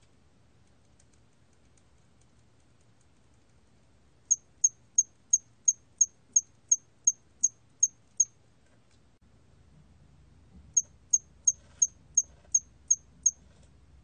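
A 털귀뚜라미 cricket ("hairy cricket"), recorded at 27 °C, calling in short high-pitched chirps about three a second: a run of twelve, a pause of a couple of seconds, then a run of eight.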